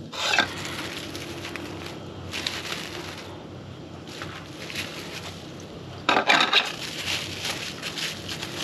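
Plastic cling film crinkling and rustling in several bursts as it is handled and wrapped around a burger patty, over a steady low hum.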